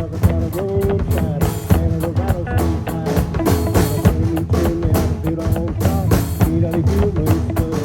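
Live band playing, a guitar line over a drum kit with a steady beat.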